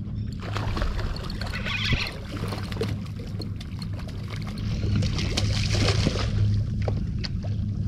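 Boat engine running at a steady idle, with bursts of water splashing and small knocks and clicks over it.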